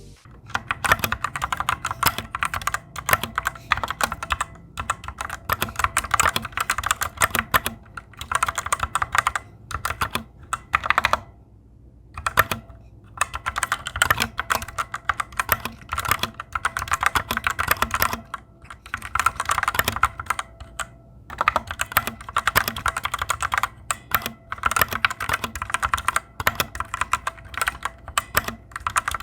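Typing on a Fantech Maxfit61 60% mechanical keyboard with Otemu Red linear switches: rapid keystroke clacks with the switches' spring ping, which the owner finds rather loud for these switches. The typing stops for about two seconds around eleven seconds in.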